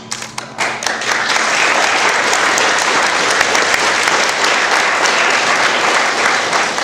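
Audience applause: a few separate claps at first, filling out within about a second into steady clapping from a crowd.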